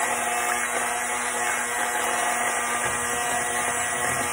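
Electric hand mixer, a General Electric model, running steadily with its beaters whipping wet ingredients and sugar in a stainless steel bowl.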